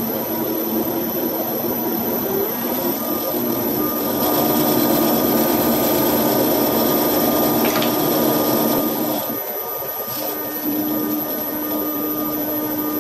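Lathe running with a steady motor whine while its carbide tool turns down a nylon bar, the cut making a steady hiss. The cutting noise is louder from about four seconds in until about nine seconds in, with a short tick near eight seconds.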